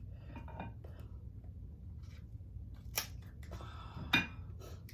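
King crab shell being broken open by hand: a few sharp cracks and snaps, the loudest about three seconds and about four seconds in.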